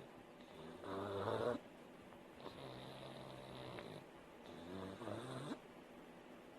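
A sleeping pug snoring in a steady breathing rhythm, one buzzy snore roughly every two seconds. The loudest snore comes about a second in.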